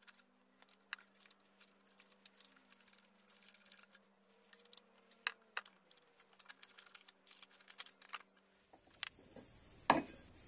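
Faint small metallic clicks and ticks of an Allen wrench turning and loosening the bolts on the clutch housing of a Honda GX35 brush cutter, with one sharper clack near the end as the housing comes loose. A steady high-pitched insect trill comes in near the end.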